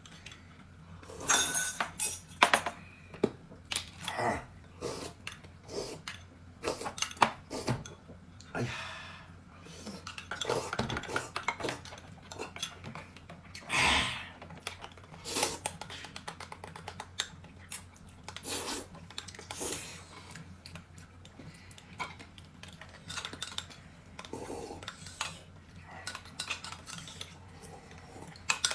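Eating utensils tapping and clinking against bowls and dishes in irregular, scattered knocks.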